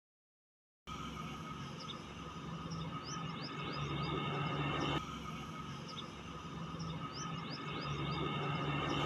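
Small birds chirping in short rising calls over a steady low hum. The sound drops out for about the first second and changes abruptly about five seconds in.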